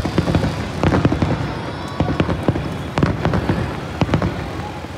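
Fireworks going off: sharp, irregular bangs, a few each second, over a steady crackling rumble.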